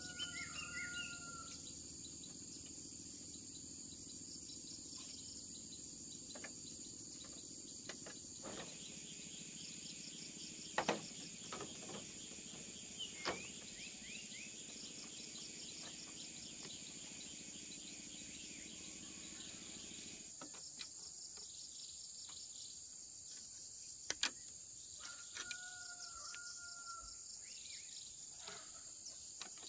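Steady high-pitched insect chorus, with a bird's short whistled call near the start and again about 25 seconds in. A few sharp knocks of bamboo poles being handled come at intervals.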